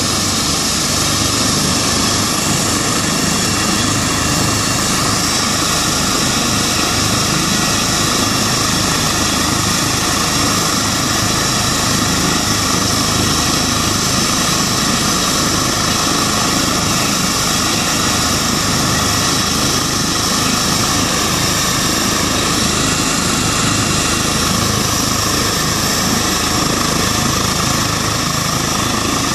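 Eurocopter EC135 air ambulance helicopter running on the ground with its rotors turning: a steady turbine whine over an even rush of engine and rotor noise, holding level throughout.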